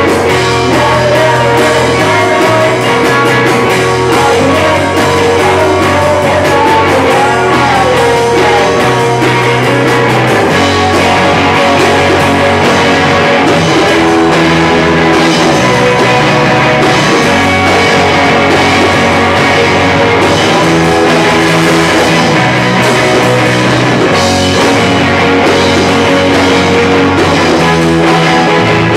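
Rock band playing loudly with guitar, bass and a drum kit. The bass moves between held notes every second or two under steady drumming.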